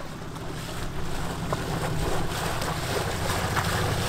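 A boat engine running steadily with a low hum, with wind on the microphone and water washing around the hull.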